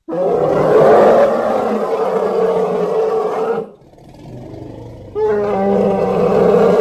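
Monster pain roar sound effect, a gritty, groaning roar that lasts about three and a half seconds and dies into a quieter tail, then a second pained roar starting about five seconds in.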